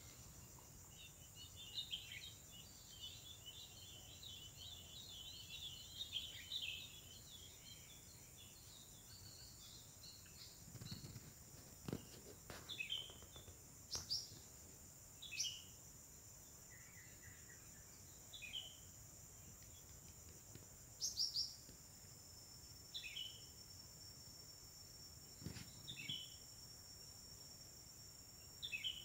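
Outdoor nature ambience: a steady high-pitched insect drone runs throughout. Over it a bird chatters rapidly for the first several seconds, then gives short falling chirps every one to three seconds. A few faint clicks come in the middle.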